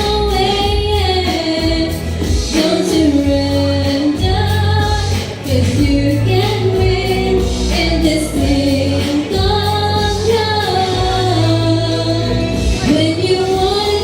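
A woman singing a melody of held, sliding notes over instrumental backing with a steady bass line, a live performance that she apologized for as sub-par because of a cough.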